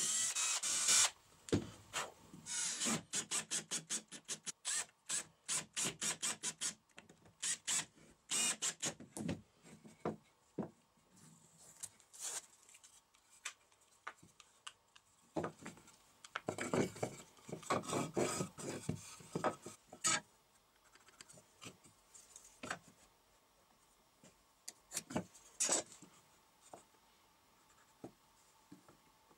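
A cordless drill bores a short pilot hole into a pine block, then comes a long run of quick, rhythmic rubbing strokes on wood. A second stretch of rubbing follows, then scattered light taps and clicks as wooden blocks and tools are handled.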